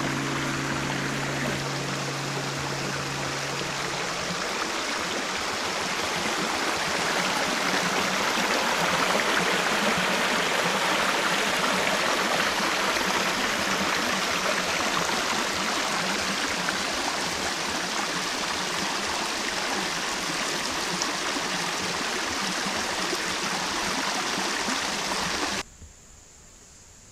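Shallow rocky creek running, a steady rush of water that cuts off suddenly near the end.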